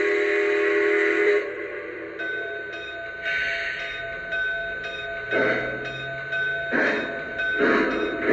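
Recorded steam-locomotive sounds from a Lionel Legacy model of a Norfolk & Western Class A: a steam whistle blast that ends about a second in, then steam chuffs starting about five seconds in and coming faster.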